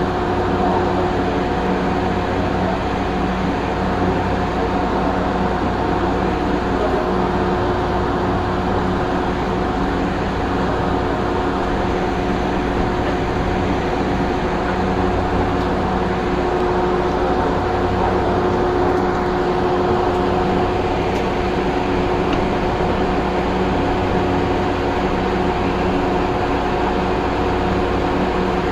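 Steady running noise inside the driver's cab of a light rail train on the move: an even hum with a constant pitched drone from the cab's onboard equipment, unchanging in level.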